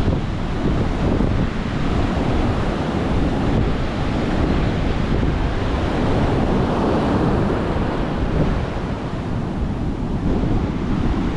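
Rough ocean surf breaking and washing ashore, with strong wind buffeting the microphone in a steady low rumble; the heavy surf and wind are stirred up by a hurricane passing over the state.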